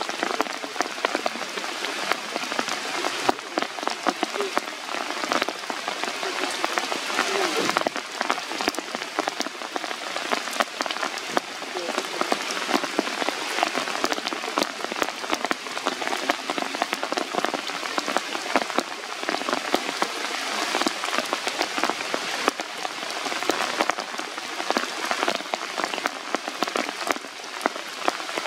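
Rain falling steadily on forest foliage: a dense, even patter of drops striking wet leaves and branches.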